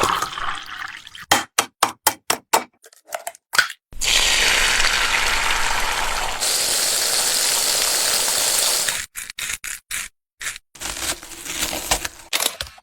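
A string of separate stock sound effects for video editing: a quick run of sharp clicks, then about five seconds of steady rushing noise, then more short clicks and scattered noisy bits near the end.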